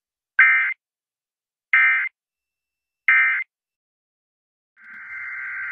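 Emergency Alert System end-of-message data bursts played over a radio broadcast: three short, harsh digital screeches at an even spacing, separated by silence, signalling the end of the alert. About five seconds in, a longer, steadier burst of the same screech begins.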